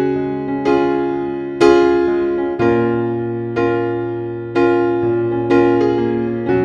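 Background music: a keyboard playing slow chords, struck about once a second, each fading away before the next.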